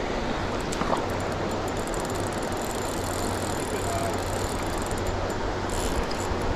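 Steady rush of fast river current over rocks, an even, unbroken noise.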